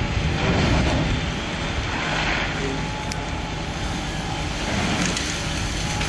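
Fire pump engine running steadily under the rushing hiss of a compressed air foam hose stream being discharged onto a burning car.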